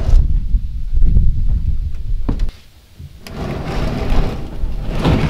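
Wind rumbling on the microphone for about the first half, with a knock, then the plastic kayak hull scraping and sliding against the truck's metal kayak rack as it is tipped up onto it, with another knock and a louder scrape near the end.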